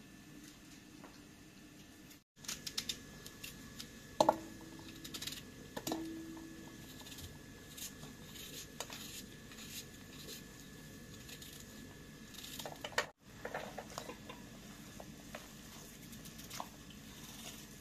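Food-preparation handling sounds: scattered small clicks and taps of utensils and dishes, with two louder knocks on metal cookware about four and six seconds in that ring on briefly.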